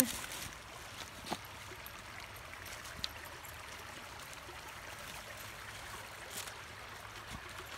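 Creek water running steadily over rocks, flowing fast and high after heavy rain. Two small clicks sound about a second in and again about three seconds in.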